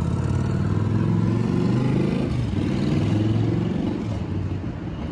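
A road vehicle's engine accelerating in traffic below. Its pitch climbs, drops at a gear change a little over two seconds in, then climbs again.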